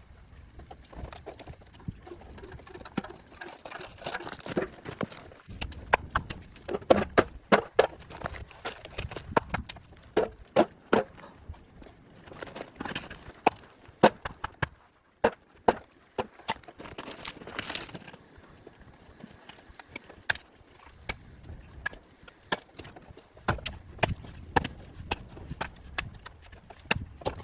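Irregular knocking and crunching: many sharp, uneven strokes, some in quick runs, with a short scraping rush about two-thirds of the way through.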